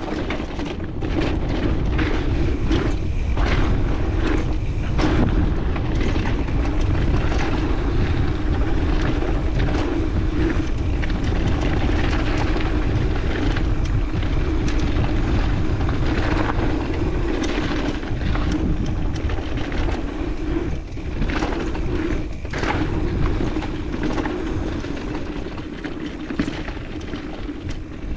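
Mountain bike rolling downhill on a dirt trail, heard from a chest-mounted GoPro: a steady tyre rumble with a low hum and frequent knocks and rattles as the bike goes over bumps.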